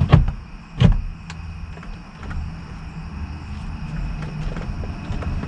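Two sharp knocks about a second apart, then lower rumbling handling noise, as steering column parts and the steering wheel are worked back into place by hand.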